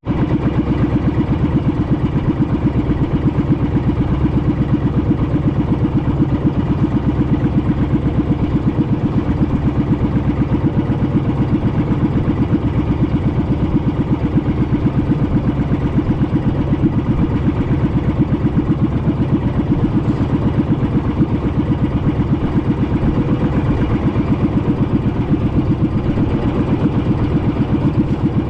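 Small fishing boat's engine running steadily at a constant speed, with a fast, even firing rhythm.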